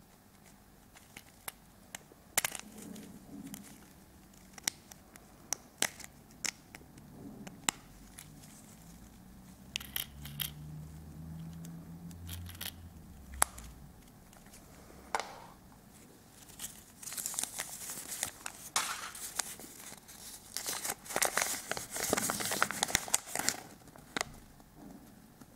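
Scattered light clicks of a small plastic toy being handled, its hinged lid opened and shut, then a paper leaflet crinkling for several seconds as it is unfolded near the end.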